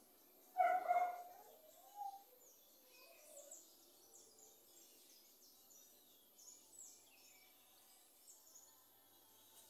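Small birds chirping: many quick, high, falling chirps, faint and scattered through most of the stretch. About half a second in there is one brief louder call with a clear pitch.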